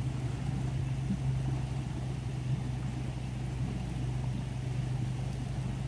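A vehicle engine idling: a steady low hum with no change.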